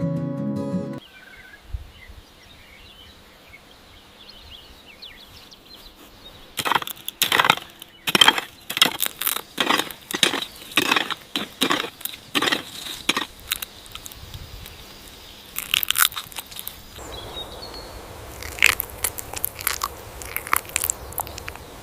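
Guitar music stops about a second in, then comes a series of crunching sounds, roughly two a second, with a second run near the end.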